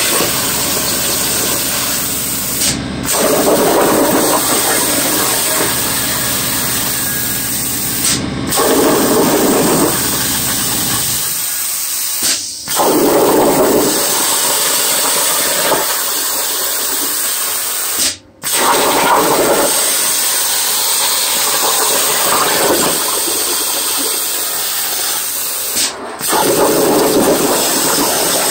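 Plasma torch on a Langmuir Crossfire CNC table cutting 18-gauge sheet metal: a loud, steady hiss of air and arc that swells and eases every few seconds. It cuts out for a moment five times.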